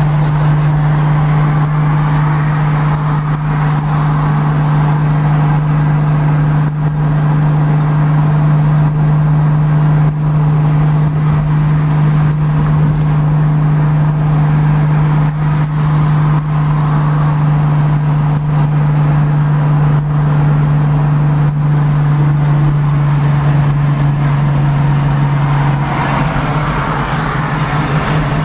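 1966 Ford Mustang cruising at highway speed, heard from inside the cabin: a steady low engine drone over tyre and wind noise. The drone shifts and becomes less even about two seconds before the end.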